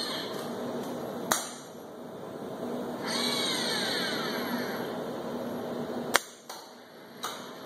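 Motoman MH5L industrial robot arm's servo motors whining as the arm moves, the pitch sliding down as the joints slow. Two sharp clicks from the gripper come through, one about a second in and one near the end.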